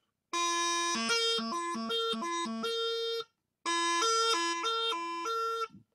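Bagpipe practice chanter playing a quick alternation between E and high A, twice with a short break between. One run has crossing noises, a brief false note slipped in between the changes from fingers opening and closing in the wrong sequence, and the other is played clean.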